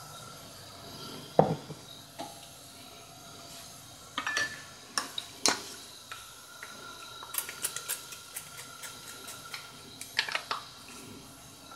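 Kitchen clatter of pans, utensils and dishes being handled and set down: a sharp knock about a second and a half in, then scattered clinks, with a quick run of light metallic clicks in the middle.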